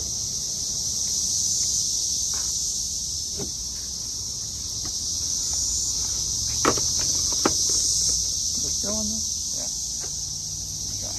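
Cicadas buzzing in a steady, high-pitched chorus. Two sharp clicks a little past halfway.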